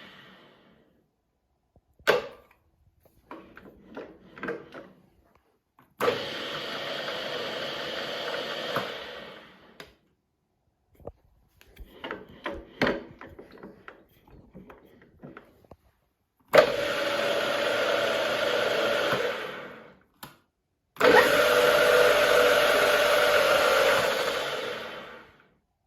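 HBM 40-H drill-mill's oil-bath geared headstock running in three spells of a few seconds each, the later two louder, each winding down as the spindle stops. Clicks and knocks come in between.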